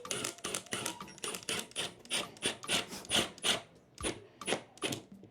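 Screws being driven into foam-cored waterproof wall board, heard as a run of sharp, even clicking strokes, about three a second.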